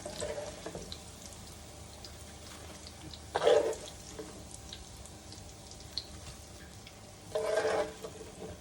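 Hot cooking oil sizzling steadily in a skillet as fried battered cauliflower pieces are lifted out, with three short louder bursts, about three to four seconds apart.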